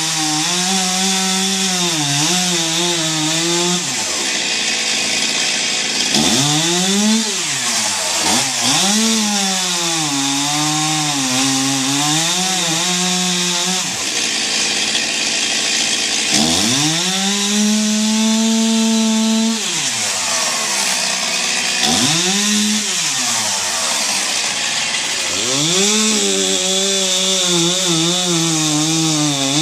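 Gas chainsaw revving up and cutting wood several times over, its engine pitch sagging and wavering under load during each cut and falling away between cuts.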